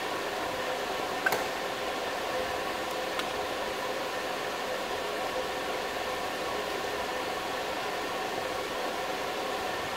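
Steady workshop background hiss with a faint hum, and a single sharp click about a second in.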